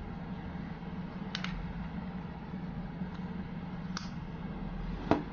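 Plastic battery cover of a Toreto Shadow-2 wireless mouse being pressed shut by hand: a few light plastic clicks, the loudest near the end, over a steady low hum.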